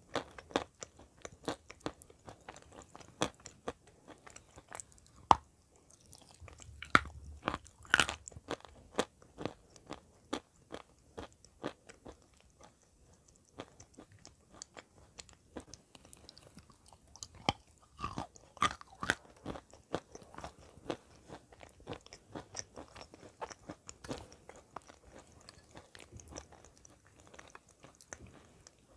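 Close-miked crunching and chewing of clay: many sharp, irregular crunches as white clay pieces coated in wet grey clay are bitten and chewed.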